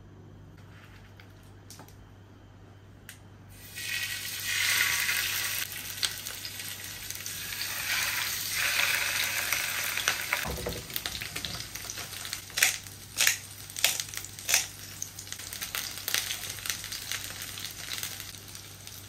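Salmon fillets frying in hot oil in a nonstick pan: a loud sizzle starts about four seconds in and carries on, with sharp pops and clicks in the second half.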